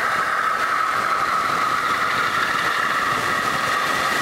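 Large-scale model freight train running on the layout's track: a steady, unchanging whine over a rolling, rattling noise.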